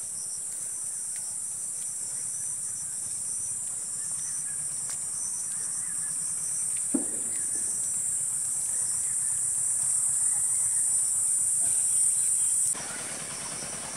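Insects droning steadily in a high pitch, slowly growing louder, then falling away abruptly near the end. A single short knock about halfway through.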